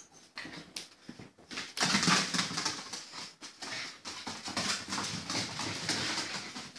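Chinese Crested puppies playing and making small-dog noises. The noises start right at the opening and grow louder about two seconds in.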